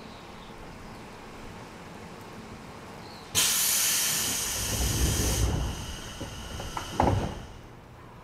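Inside a JR 211 series 3000 electric train car, compressed air suddenly hisses loudly for about two seconds and then fades, with a low rumble beneath it. A heavy thud follows about seven seconds in, typical of the pneumatic doors closing before the train departs a station.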